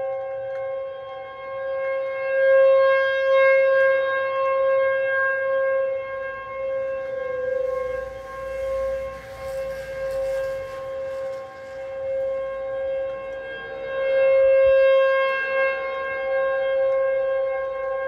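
Outdoor tornado warning siren sounding a single steady pitch for its monthly test, its loudness swelling and fading twice as the rotating horn sweeps past. A soft rushing noise rises under it midway.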